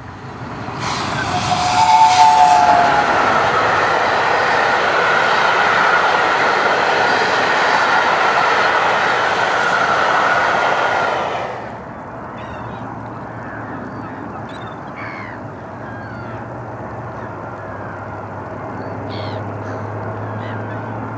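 Peppercorn A1 Pacific steam locomotive 60163 Tornado and its coaches passing at speed: a short two-note whistle about two seconds in, then the steady rush of the exhaust and wheels on the rails as the train goes by. About eleven seconds in the sound drops suddenly to a quieter scene with birds chirping over a low steady hum.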